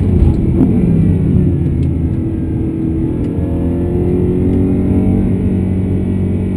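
BMW E92 M3's 4.0-litre V8 heard from inside the cabin at a moderate warm-up pace. Its revs fall as the car slows into a corner, then rise gently under light throttle about halfway through.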